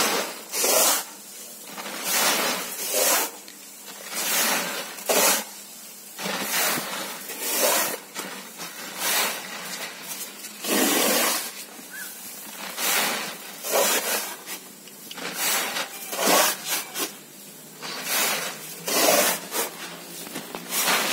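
Handfuls of soaked paddy grain scooped and poured into a rice sack: rustling, rushing swishes of grain against grain and sack, about one a second at an uneven pace.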